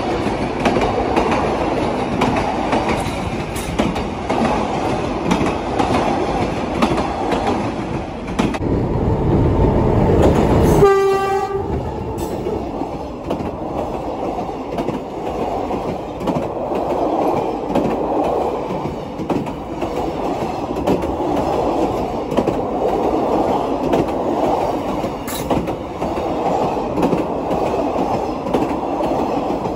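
Passenger train running past close by: a continuous rumble and rattle of coaches and wheels on the rails. It swells to its loudest about ten seconds in, and a short train-horn blast sounds about eleven seconds in.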